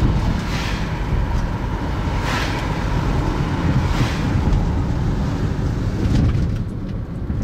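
Steady low road and engine rumble heard inside a moving car's cabin. About three brief rushing swells of hiss in the first four seconds come from oncoming cars passing.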